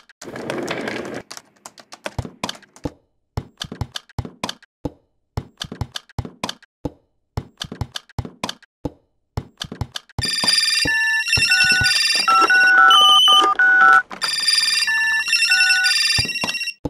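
Irregular sharp clicks and knocks, with a short hissing burst at the start. About ten seconds in, a loud run of electronic beeping tones begins, hopping between several pitches, with a brief break near fourteen seconds.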